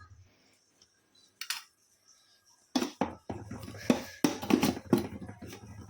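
Kitchen utensils and containers clattering, with a spoon and dishes knocking and clinking as panjiri is taken out into a dish. The string of sharp knocks starts about three seconds in, over a low steady hum.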